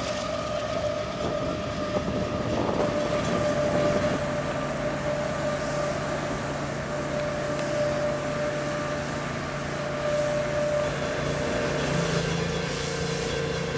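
Freight train running past, its noise steady, with a steady high tone held over it that fades out about three-quarters of the way through.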